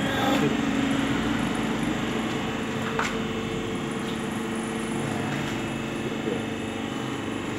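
Flexideck seam-cover molding machine running, a steady mechanical hum with a couple of faint clicks.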